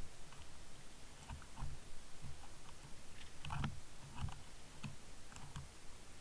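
Handling noise from a small camera hanging on a fishing line: scattered light clicks and soft low thumps, a little heavier about three and a half to four seconds in.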